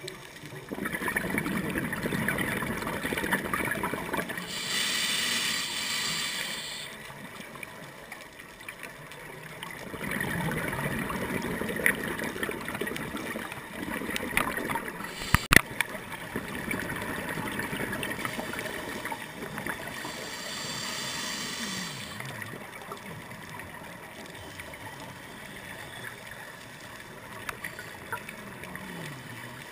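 Scuba regulator breathing, heard from underwater: exhaled air bubbling out in a low gurgling rumble, alternating with a high hiss as the diver inhales through the demand valve, twice, about five and twenty seconds in. A few sharp clicks sound about halfway through.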